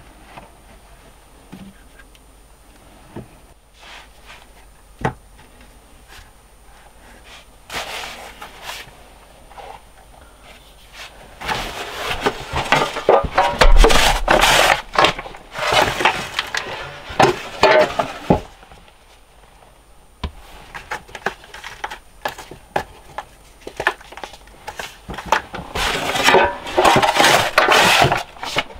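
Shovel scooping sand and pouring it into a plastic bucket to bury carrots for root-cellar storage: grainy scraping and pouring in two long stretches, the first starting about a third of the way in and the second near the end, after a few scattered light knocks.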